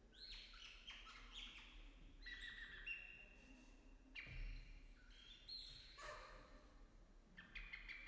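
Choir boys imitating birdsong: faint, scattered chirps and short rising whistles, several calls overlapping.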